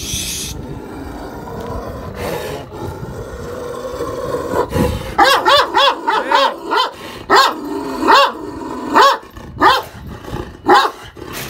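Akbaş dogs in an aggressive clash: low growling for the first few seconds, then sharp barks in quick bursts from about halfway through.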